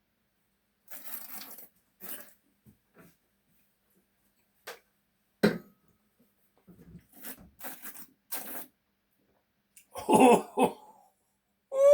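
Scattered clinks and knocks of crockery being handled while washing dishes by hand, with one sharp knock about halfway through. Near the end there is a short, louder throaty vocal sound.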